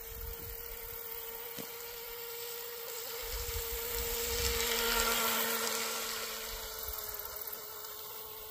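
Brushless electric RC outrigger boat running fast laps: a high-pitched motor and propeller whine that swells to its loudest about five seconds in as the boat passes closer, then fades.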